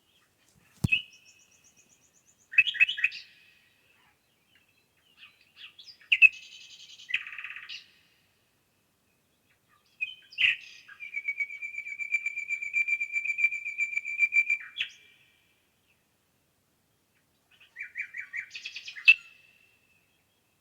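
Songbirds singing in short separate phrases, with one long even trill lasting about four seconds in the middle.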